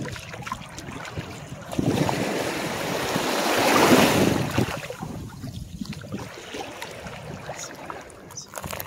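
A small wave washing through shallow water on a calm beach, rushing up about two seconds in, peaking near the middle and fading away, with gentle lapping otherwise.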